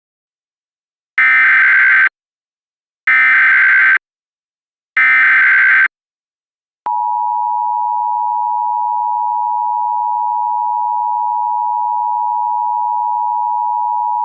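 Emergency Alert System tones: three short bursts of SAME header data, about a second each and two seconds apart, then the steady EAS two-tone attention signal starting about seven seconds in. Together they open the tornado warning broadcast.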